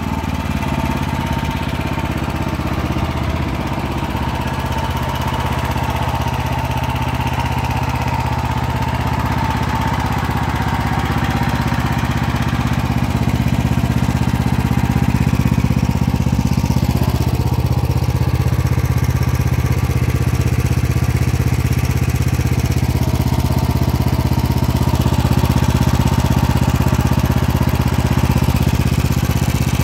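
18 hp, 450 cc single-cylinder petrol engine of a Shtenli walk-behind tractor running steadily while the machine stands still, getting a little louder about twelve seconds in.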